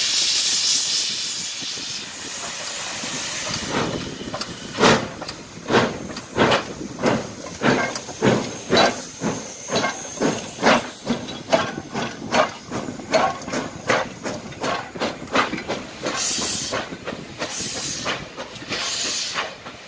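Soviet steam locomotive starting a train: a steady hiss of steam venting low by the cylinders, then exhaust chuffs from about four seconds in, coming quicker as it gathers speed, with bursts of steam hiss near the end.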